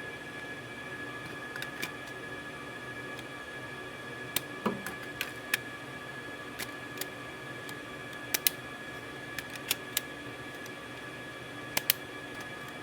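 Scattered sharp clicks and clacks of hard drives and drive trays being handled and seated in a computer chassis's drive bays, irregular and spaced out, over a steady high-pitched whine.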